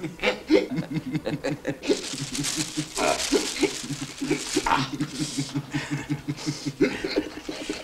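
A man laughing: a long run of short, repeated chuckles, several a second, with breathy bursts between them.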